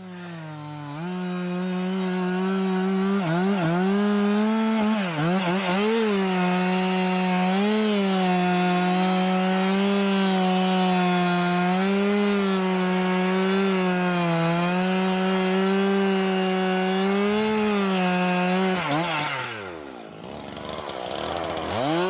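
Chainsaw revving up about a second in, then running at full throttle as it cuts into the base of a standing tree, its pitch dipping slightly as the cut loads it. Near the end the engine drops to a low speed for a moment, then revs back up.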